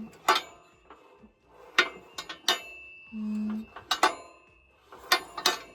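Metal tools clinking and knocking against the metal parts of a disassembled chipper/shredder, about seven sharp strikes with brief ringing, while a jammed piece is worked loose.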